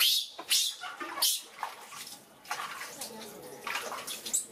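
Water splashing and dripping in short irregular bursts as a wet baby monkey is scrubbed by hand over a steel basin of water.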